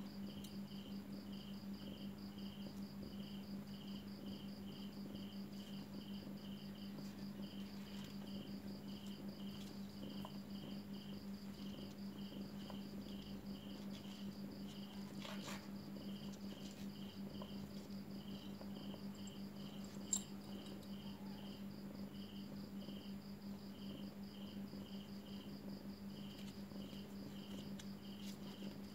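Faint cricket chirping in a steady, even rhythm of about two to three chirps a second, over a steady low hum. A single brief click comes about two-thirds of the way through.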